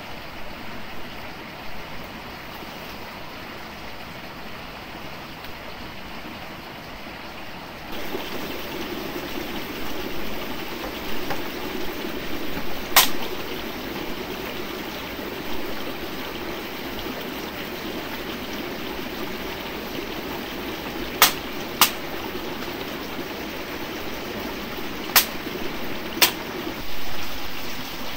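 Stream water running steadily, louder from about eight seconds in, with five sharp clicks or knocks spread through the second half.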